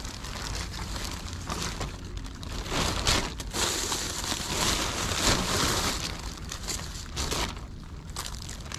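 Thin plastic bin bag rustling and crinkling as litter is gathered and dropped into it, in uneven handling strokes that are loudest around the middle.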